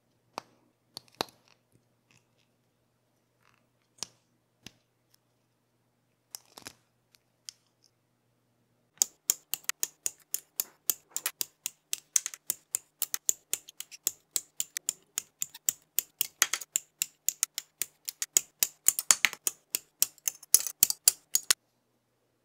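Hobby nippers snipping plastic model-kit parts off their runners: a few scattered clicks of plastic parts at first, then from about nine seconds in a rapid run of crisp snips, several a second, which stops shortly before the end.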